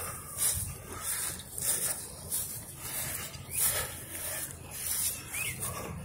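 Footsteps swishing through grass at a walking pace, about one and a half steps a second, with a couple of short high chirps in the background.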